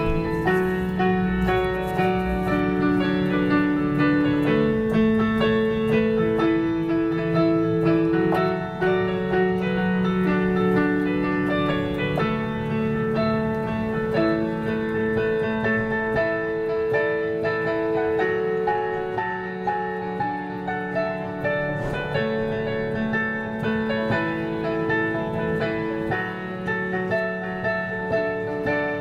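Piano music, with held chords under a melody line.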